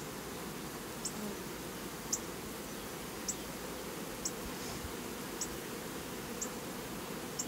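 Honeybees buzzing steadily around an open hive, with a short high tick repeating about once a second.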